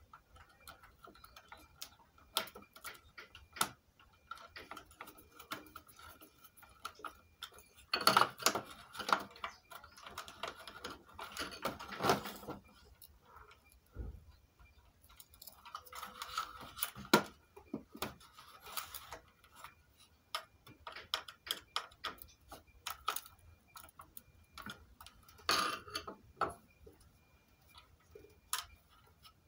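Irregular small clicks, taps and scrapes of a screwdriver and hands on circuit boards and a plastic casing, with busier stretches of scraping and rattling a third of the way in, past the middle and near the end.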